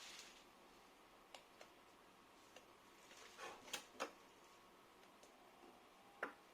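Faint, irregular clicks and taps from hand work, a few of them louder around three to four seconds in and again near the end, against near silence.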